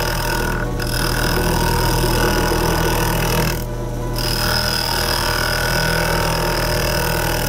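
Wood lathe running with a steady hum while a chisel cuts a spinning soft Denim Pine blank, a continuous hissing scrape. The cutting breaks off twice, briefly just under a second in and for about half a second near the middle.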